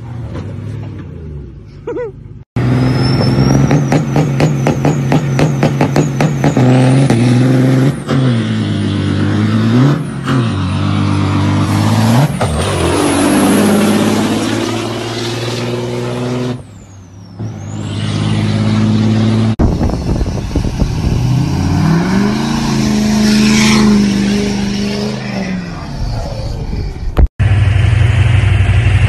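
Diesel truck engines revving hard, pitch climbing and falling again and again, across several short clips that cut from one to the next. A high whistle rises in pitch a few seconds in.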